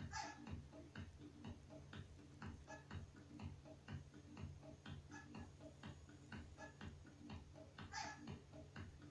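Faint background music with a steady ticking beat, about three ticks a second over a low sustained tone.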